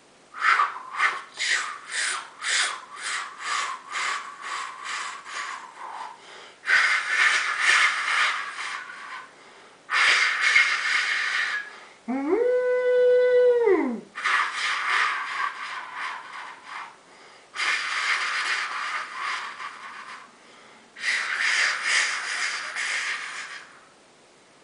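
Vocal imitation of a train in a tunnel, made with the mouth: rhythmic chugging puffs, about two and a half a second, that fade over the first six seconds, then long rushing hisses. Near the middle comes a two-second whistle-like hoot that rises, holds one pitch and falls away.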